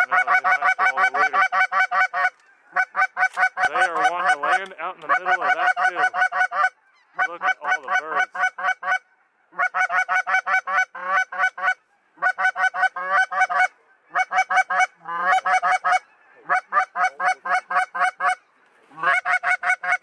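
Geese calling in flight: fast, repeated honking and clucking notes in runs of a few seconds, broken by short pauses.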